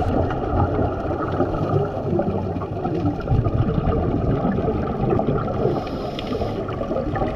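Muffled underwater noise of scuba divers' regulators and rising exhaled bubbles, a steady gurgling and crackling heard through an underwater camera's housing.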